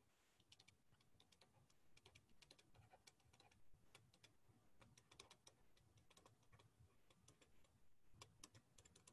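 Near silence, with faint, irregular light clicks and taps scattered throughout.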